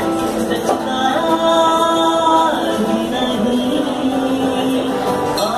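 A man sings live with long held notes, accompanied by his own acoustic guitar.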